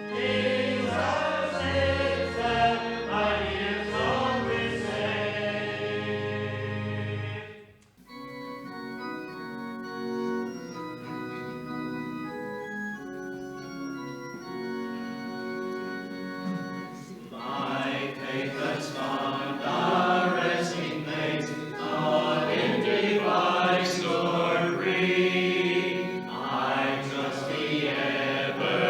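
Congregation singing a hymn with organ accompaniment, which breaks off abruptly about a quarter of the way in. The organ then plays alone in sustained chords, the introduction to the next hymn, and a little past the halfway point the congregation joins in singing with it.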